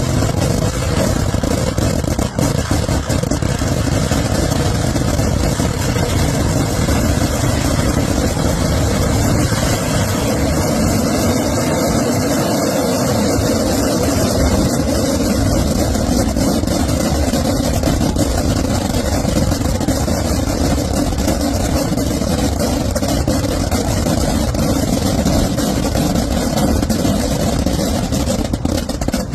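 Kerala temple-festival fireworks (vedikkettu) barrage: firecrackers going off so fast that the blasts run together into one continuous, loud rumble without a break.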